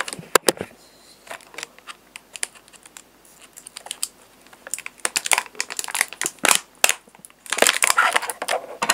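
Clear plastic toy packaging being handled as an action figure is worked loose from its tray. A couple of sharp clicks come at the start, then scattered crinkles, turning to denser crinkling and clicking in the second half.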